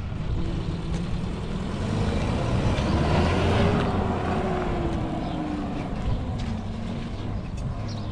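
A motor vehicle's engine running close by. It grows louder to a peak about three and a half seconds in, its pitch rising and then falling, and then eases off as it passes.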